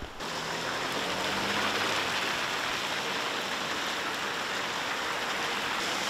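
Heavy rain pouring down in a steady, even hiss that begins abruptly.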